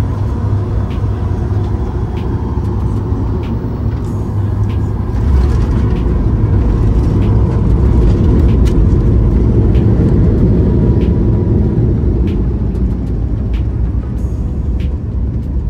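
Boeing 737 MAX 8 cabin noise: a loud, steady low rumble with light rattles, growing louder about five seconds in.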